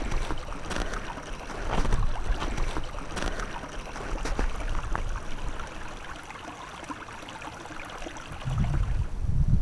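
Small shallow brook running over rocks between snow banks, a steady rush of water, with a few light clicks in the first seconds and a low rumble near the end.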